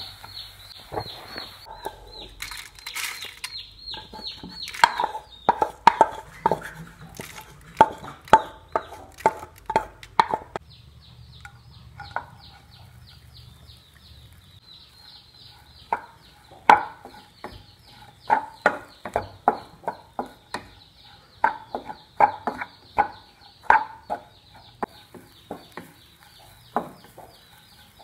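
Wooden spatula knocking and scraping against a non-stick pan while stirring frying shallots and coriander seeds, then grated coconut, in irregular runs of sharp taps with a quieter pause in the middle. A faint, rapid high chirping continues in the background.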